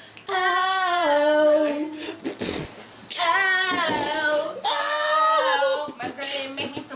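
A woman singing unaccompanied: three long, drawn-out phrases with a wavering vibrato, the first sliding down in pitch.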